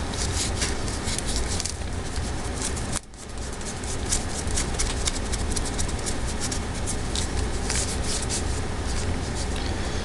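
Nevr-Dull cotton wadding polish rubbed between the fingers over a metal RF connector: a dense scratchy rustling full of small crackles, which drops off briefly about three seconds in and then resumes.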